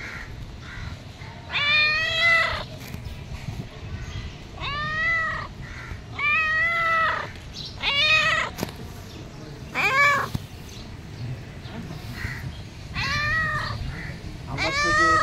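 Tortoiseshell cat meowing repeatedly, about seven meows spread a second or two apart, each one rising then falling in pitch.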